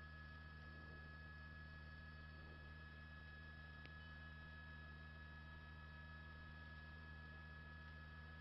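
Near silence: a faint, steady electrical hum with a few thin steady tones, and one faint click about four seconds in.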